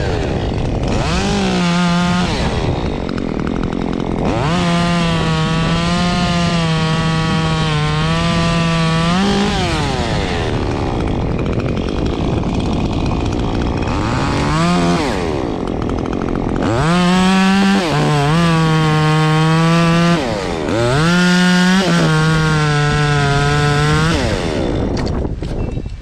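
Muffler-modified Stihl top-handle two-stroke chainsaw revved to full throttle in five runs: a short one about a second in, a long one of about five seconds, a brief blip, then two of about three seconds each near the end. It drops back towards idle between runs, and its pitch wavers under load as it cuts birch wood.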